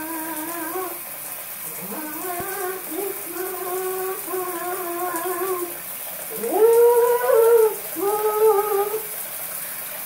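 Harlequin macaw singing a run of long held notes, several swooping up at the start, the loudest about two-thirds of the way in, over the steady hiss of a running shower.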